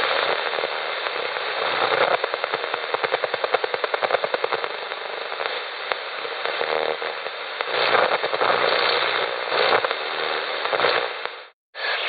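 Shortwave AM radio receiver static and hiss from a small external speaker as the dial is tuned down through the 3 MHz band. A run of rapid, evenly spaced crackles comes a couple of seconds in, and a faint steady tone near the middle. The sound breaks off abruptly near the end.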